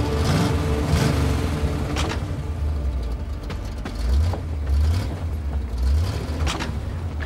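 A van's engine running low and rumbling as the van pulls up, swelling a few times, with several sharp clunks of its doors being opened.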